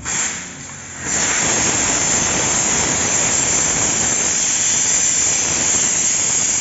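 A steady, loud hiss that swells about a second in and then holds evenly.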